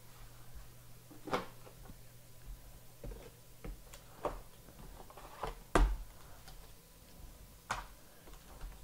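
Hard plastic trading-card cases clacking as they are handled and set down among other cases: about seven scattered clicks and knocks, with one louder knock about two-thirds of the way through.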